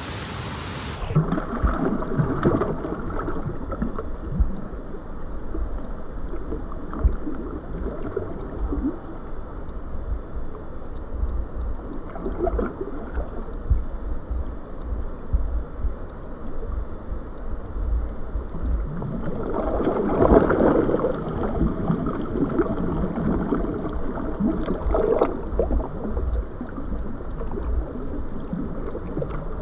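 River water splashing and sloshing around a large flathead catfish held in the shallows for release, in irregular bursts, the biggest about twenty seconds in. Low rumbling on the microphone runs underneath.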